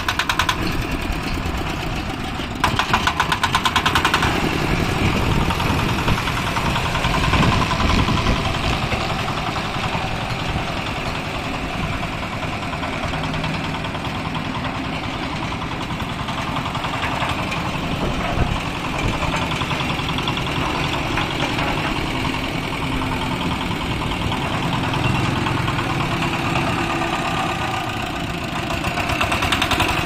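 Concrete mixer's small single-cylinder diesel engine running with a steady knocking beat, louder for a moment about three seconds in and again near the end.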